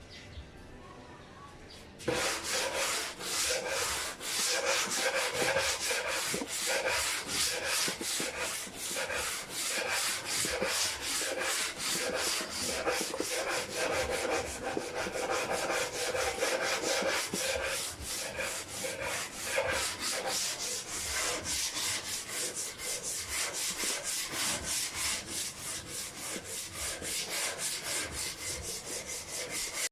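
Wooden speaker box being sanded by hand with sandpaper, in quick back-and-forth scraping strokes, about three to four a second, starting about two seconds in.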